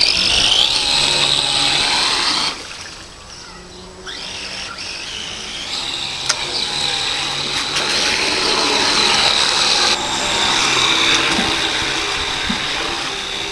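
Graupner RC outboard driven by a 550-size brushed electric motor, whining as it pushes the model speedboat through the water. The whine drops away about two and a half seconds in, then builds back up over the next few seconds.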